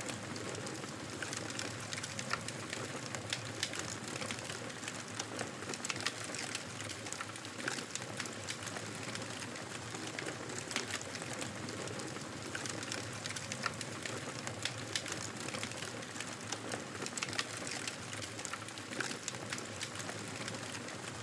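Campfire burning, a steady hiss dotted with frequent sharp crackles and pops.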